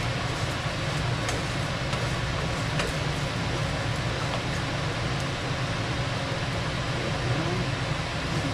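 A steady low hum under a hiss, with a few faint clicks.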